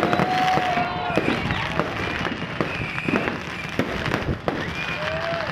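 Fireworks going off in a dense barrage of pops and crackles, with whistling tones over them.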